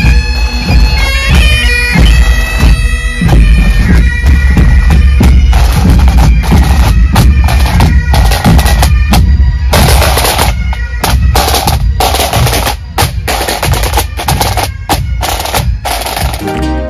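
Scottish pipe bands marching past, playing Highland bagpipes with snare, tenor and bass drums. The pipes are loudest in the first few seconds; from about the middle the drums dominate, with rapid snare strokes and rolls.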